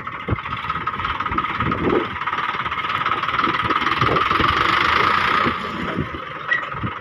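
Sonalika DI 745 tractor's diesel engine running at close range, steady, growing louder from about four seconds in and easing off a little after five and a half seconds.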